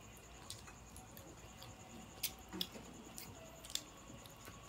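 Quiet eating sounds at a dinner table: a few scattered faint clicks and taps as people peel and eat shrimp by hand.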